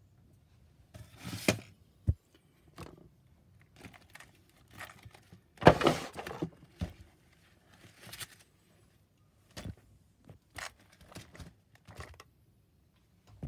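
Handling noise from a small RC truck's plastic chassis being moved and rolled over on a bench: scattered knocks, clunks and scrapes, with a sharp knock about two seconds in and the loudest clatter about six seconds in.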